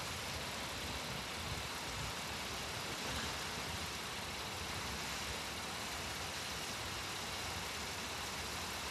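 Steady low engine rumble under a constant hiss.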